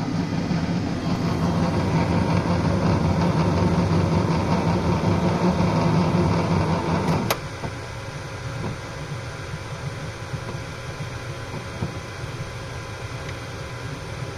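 3D printer's multi-filament feeder motor running steadily as it pushes filament through, stopping abruptly with a click about seven seconds in. A quieter steady whir carries on after it.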